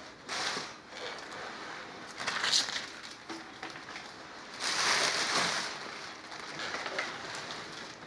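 Rustling and crinkling of packaging as a tower speaker is lifted out of its box, in several irregular bursts, the loudest about five seconds in.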